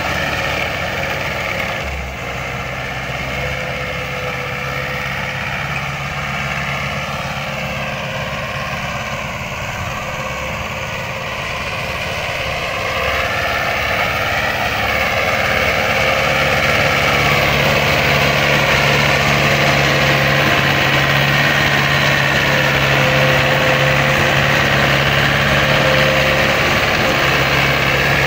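Farm tractor's diesel engine running steadily under load as it pulls a disc harrow through tilled soil. It grows louder about halfway through as the tractor comes close.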